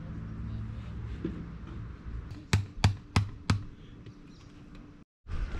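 A tent stake being driven into the ground to anchor a tarp guy line: four sharp strikes in quick succession, about a third of a second apart, about halfway in.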